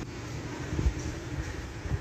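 Honda CG 125's air-cooled single-cylinder four-stroke engine running at idle, with a low thump about a second in.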